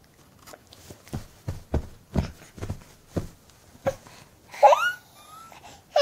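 A run of soft thumps, about eight over three seconds, then a baby's short rising squeal near the end.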